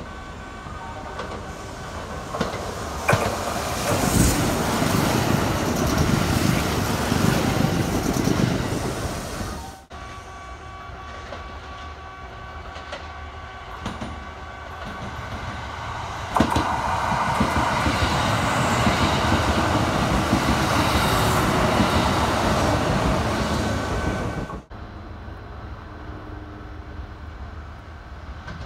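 Kintetsu electric trains running through a station, with wheels rumbling and clacking over the rail and a steady motor whine. Two loud passings are each cut off abruptly, one about ten seconds in and one near the end.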